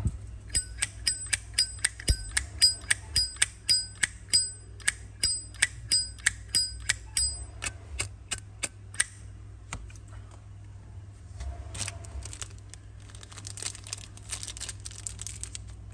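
Canadian-made Zippo lighter's lid flicked open and snapped shut over and over, a quick run of sharp metallic clinks, each with a short ringing tone, about three a second. After about nine seconds the clinks stop and only fainter clicks and handling noise remain.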